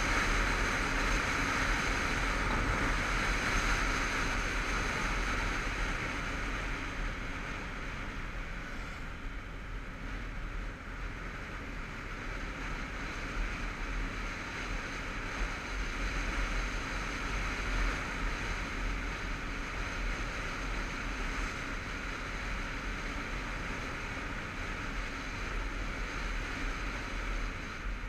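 Motorcycle riding along at road speed, heard as a steady wind rush and buffeting on the mounted camera's microphone over the bike's running. Louder for the first few seconds, then easing a little.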